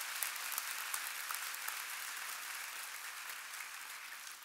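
Large audience applauding, a dense steady clapping that slowly dies down toward the end.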